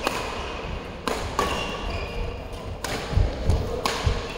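Badminton rally: rackets striking the shuttlecock with sharp cracks, four in all, about a second apart, with footsteps thudding on the court.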